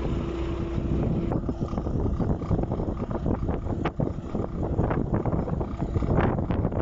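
Motor grader's diesel engine running as it drives off, partly masked by wind buffeting the microphone in irregular gusts. A thin steady whine stops about a second in.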